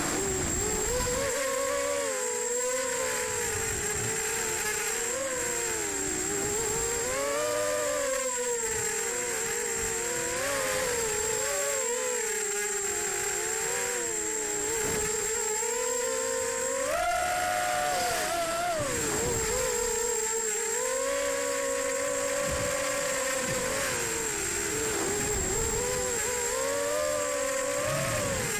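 EMAX Nighthawk Pro 280 racing quadcopter's brushless motors and propellers whining, the pitch rising and falling constantly with the throttle, with a sharp climb about two thirds of the way through. A thin steady high whistle sits above it, and low wind rumble comes and goes on the onboard microphone.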